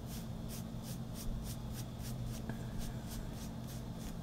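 A white ink pad rubbed lightly back and forth over embossed black cardstock, quiet rubbing strokes at about four a second.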